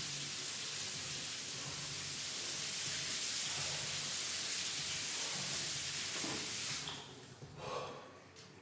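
A steady, even hiss of rushing noise, like rain or running water, that drops away abruptly about seven seconds in, leaving faint rustles and a short breathy sound near the end.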